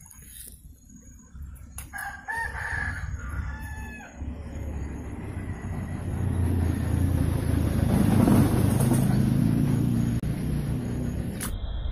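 A rooster crowing once, a long pitched call about two seconds in. It is followed by a low rumbling noise that swells, is loudest about eight seconds in, then eases.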